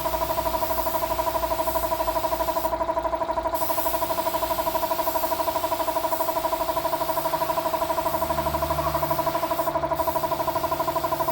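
A small motor-driven machine running steadily: a constant hum with a fast, even pulsing.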